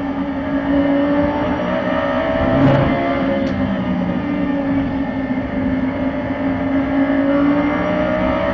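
Audi R8 race car's V10 engine at high revs in fourth gear, heard from inside the cockpit, its pitch rising and falling gently as the car accelerates and brakes through the corners.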